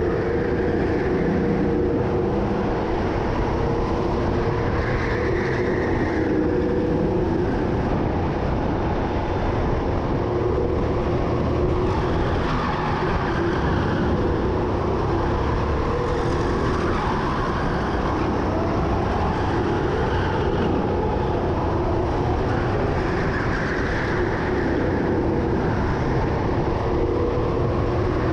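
Indoor racing go-kart's motor running hard at race pace, its pitch shifting up and down as it speeds up and slows through the corners.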